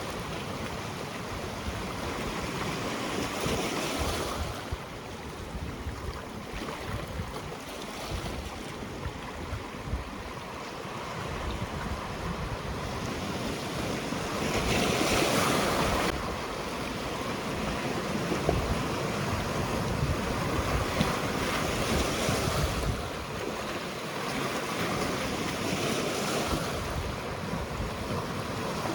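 Sea waves breaking and washing onto the shore, surging every few seconds and loudest about halfway through, with a low rumble of wind on the microphone.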